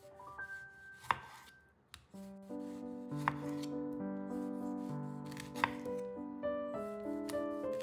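Kitchen knife cutting food against a cutting board: three sharp chops roughly two seconds apart. Soft piano music plays underneath and gets louder about two seconds in.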